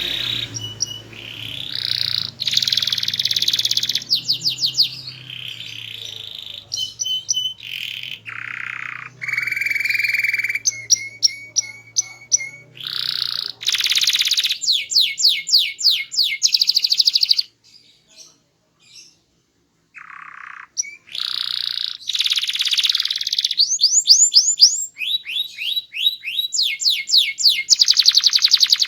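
Domestic canary singing a loud, varied song of rapid trills and quick runs of repeated notes, with a break of about three seconds past the middle before the song resumes.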